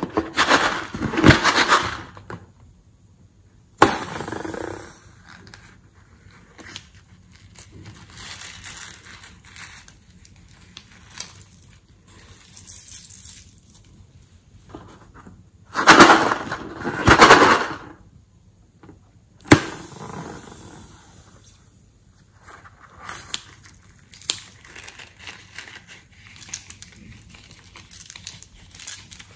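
Rubber balloons being handled and squeezed while glitter and sequin confetti pour out of them onto slime in a glass bowl. There are bursts of rubbery rustling, loudest at the start and just past halfway, and sharp clicks about four seconds in and again a few seconds later, with quieter sprinkling and crackle between.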